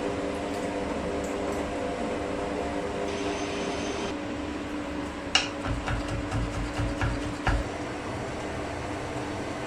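A steady machine hum with a few even tones, like a small electric motor running, and a run of sharp clicks and low knocks about halfway through.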